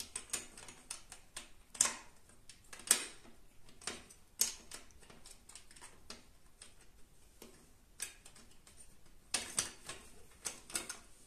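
Irregular clicks and light knocks of bolts and a fence bracket being slid into and fitted onto the slotted aluminium rail of a benchtop table saw, with a few sharper knocks among the softer taps.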